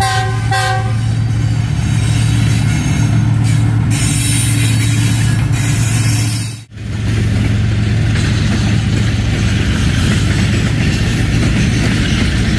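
Diesel locomotive hauling a passenger train past at close range: two short horn blasts at the start, then the steady low drone of its diesel engine with the noise of the moving train.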